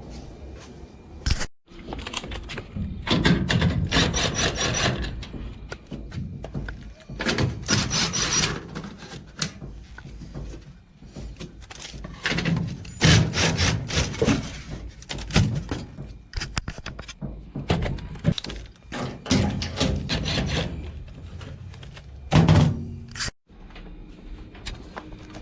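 Irregular knocks, thumps and scraping of a clothes dryer cabinet being handled and moved before disassembly.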